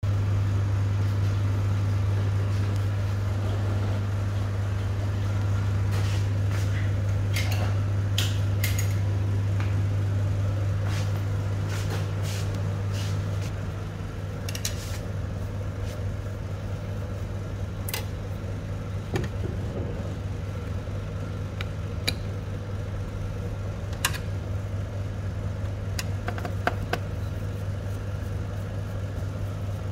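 Steady low hum of a powered-on Kyocera TASKalfa 5052ci copier, dropping in level about halfway through, with scattered sharp clicks and taps of panels and a screwdriver being handled inside the machine.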